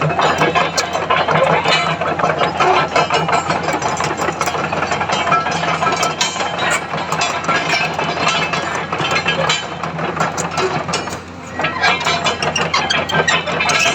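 Komatsu PC200 excavator's diesel engine running steadily, with a clattering mechanical noise over a low hum. It dips briefly about eleven seconds in, then picks up again.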